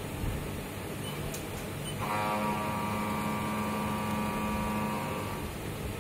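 CNC milling machine cutting a metal block with a carbide-insert cutter. A steady machine hum runs underneath; about two seconds in, the cut takes hold with a louder steady whine of several tones, which fades out near the end.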